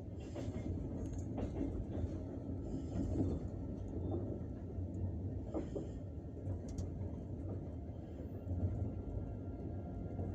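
Passenger train carriage running along the track: a steady low rumble, with a few scattered knocks from the wheels and brief high hissing sounds from the wheels on the rails.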